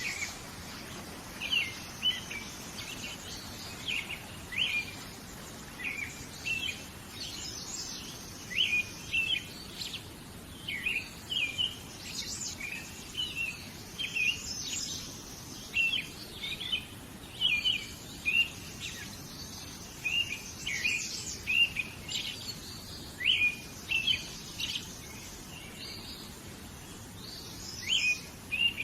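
Small birds chirping: many short, sharp calls coming one or two at a time every second or so, over a faint steady background hiss.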